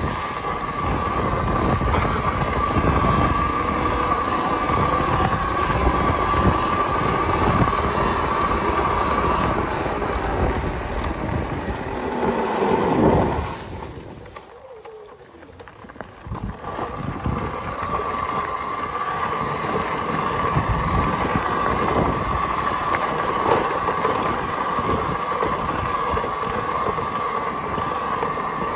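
Talaria electric dirt bike riding a rough gravel trail: a steady high whine from the electric motor and drivetrain over the rumble of the tyres. About 13 s in the whine falls away as the bike slows. It goes quiet for a few seconds, then the whine builds again as the bike picks up speed.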